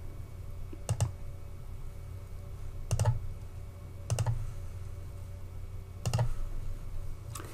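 Five sharp clicks of a computer mouse, one to two seconds apart, over a low steady hum.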